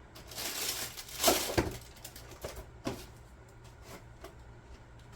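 Handling noise: a rustle lasting about a second and a half, then a few scattered light clicks and taps.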